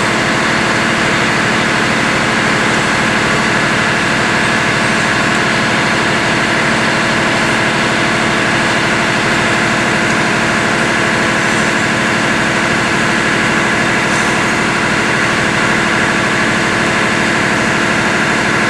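Large diesel engine running steadily at a constant speed, a loud, even drone with a fixed hum.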